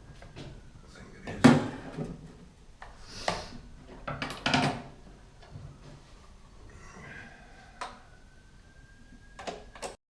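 Tools and parts being handled in a workshop: a few separate knocks and clatters, the loudest about one and a half seconds in, one with a short scrape around three seconds in. The sound cuts off abruptly near the end.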